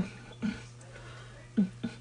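A man's short, low vocal sounds, about four brief hums that each drop slightly in pitch, over a steady low electrical hum.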